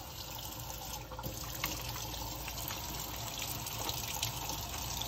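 Kitchen faucet running steadily into a stainless steel sink, the stream splashing over hands being lathered beneath it.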